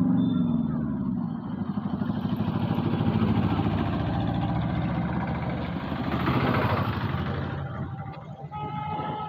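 A vehicle engine running with a fast, even pulse, growing louder to a peak about six and a half seconds in and then fading away, as a vehicle passing on the road does. A few steady high tones start near the end.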